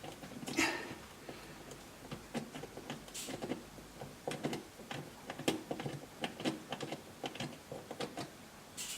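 Irregular light clicks and taps of plastic dishwasher drain parts being handled and fitted back together by hand.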